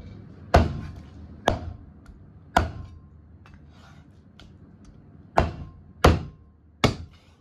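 Chinese cleaver chopping raw chicken legs into small pieces on a round wooden chopping block: three hard chops in the first few seconds, a pause with a few light taps, then three more chops near the end.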